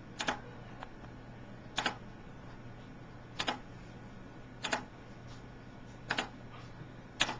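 Sharp clicks of a computer mouse, six in all and several of them doubled, coming every second or so, over a faint steady low hum. They come from clicking points while outlining the tooth area to be restored in CEREC CAD/CAM software.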